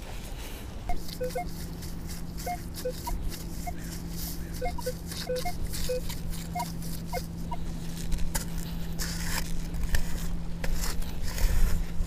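Minelab Equinox 600 metal detector in 5-tone mode giving short beeps at several different pitches as the coil sweeps over targets, over a steady low hum. From about eight seconds in, crunching and scraping of digging in the beach.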